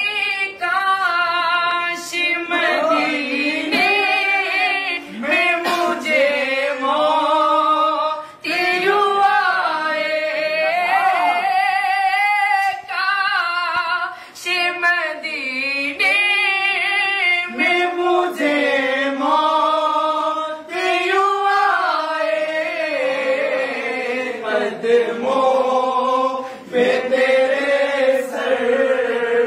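A man's voice singing a naat, an Urdu devotional poem in praise of the Prophet, unaccompanied. Long held notes slide and ornament up and down, with short breaks for breath between phrases.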